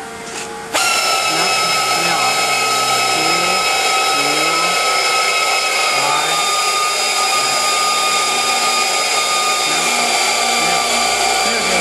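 A power tool starts suddenly about a second in and runs steadily with a high whine that sags slightly in pitch.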